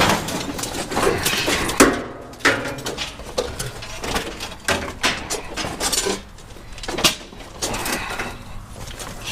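Scrap steel clanking and clattering as pieces are handled and dropped onto a scrap pile: many sharp metallic knocks, some ringing briefly.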